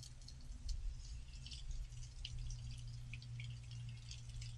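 Water splashing and dripping in quick, irregular spatters as grapes are rinsed under running water, over a steady low hum.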